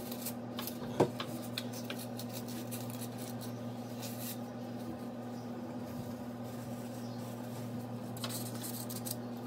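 Soft rustling and crinkling of a plastic piping bag being handled and filled, over a steady low mechanical hum, with a single sharp click about a second in.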